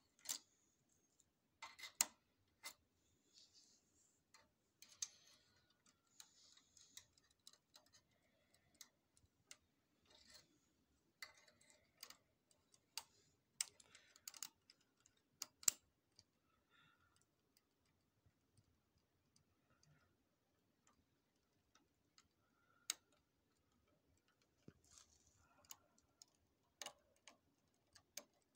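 Faint, irregular clicks and rustles of hands handling plastic parts and plugging in a cable connector inside a Xerox WorkCentre 5855 copier's scanner unit, with a quieter stretch in the middle.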